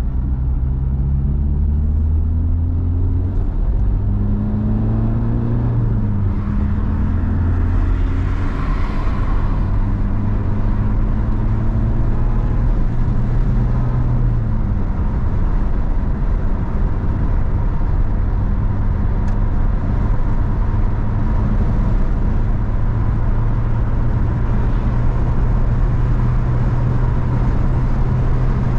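Car engine and road rumble while driving. The engine note climbs in the first few seconds, drops abruptly about six seconds in as it shifts gear, climbs again, then holds steady at cruising speed.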